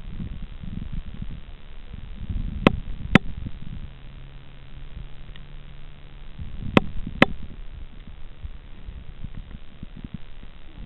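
Low, muffled rumbling of water and handling noise picked up by an underwater camera, with two pairs of sharp clicks about half a second apart, roughly three and seven seconds in, and a steady low hum through the middle.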